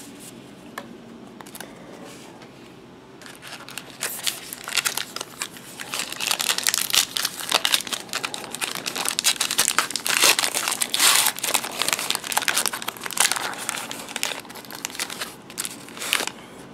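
Foil wrapper of a 2014 Topps Gypsy Queen baseball card pack being torn open and crinkled by hand: a dense crackling rustle that starts about three seconds in and goes on for roughly twelve seconds.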